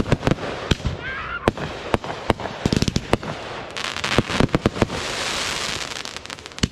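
Fireworks going off: a string of sharp, irregular bangs with bursts of rapid crackling pops, and a stretch of hissing a few seconds in.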